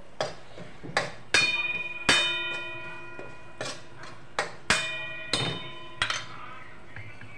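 A metal spatula knocking and scraping against a metal kadhai while stirring a tempering in oil: about nine clangs, several leaving the pan ringing for a second or so.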